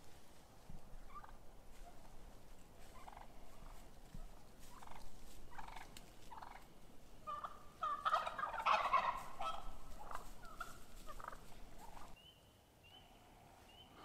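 Wild turkeys calling: scattered short calls, then a louder, rapid rattling burst about eight seconds in, with calling trailing off shortly after.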